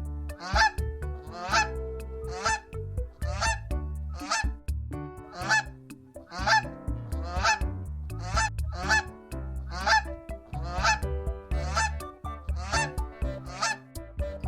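A large bird honking over and over, about one call a second, with steady background music underneath.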